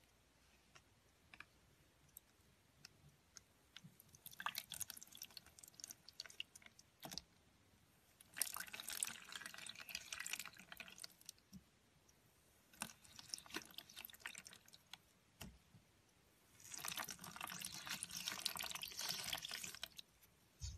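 Glitter-coated slime being pulled, folded and squeezed by hand in a plastic tub: wet, sticky crackling with small pops, in four bursts of a few seconds each after scattered single clicks.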